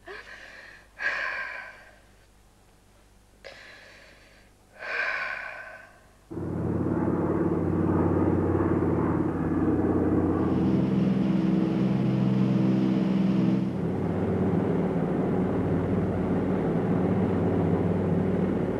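A woman's gasping breaths, four in a row, then a sudden switch to the steady drone of a Douglas DC-3's twin radial piston engines in flight, about six seconds in.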